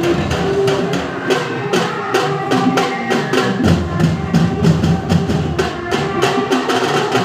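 Nasik dhol drumming: a group of dhol drums playing a fast, even beat of loud strikes.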